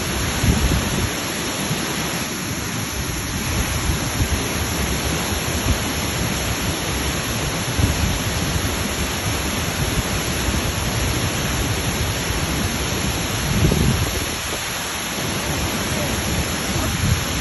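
Waterfall: a steady, loud rush of falling water with a few stronger low rumbles.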